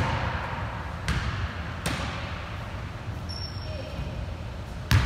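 A basketball bouncing on a hardwood gym floor: a few separate sharp bounces, the loudest near the end.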